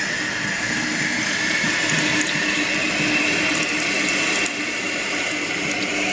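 Toilet tank fill valve refilling the tank: a steady hiss and rush of running water, rising slowly in pitch as the water level climbs toward the float's shutoff point.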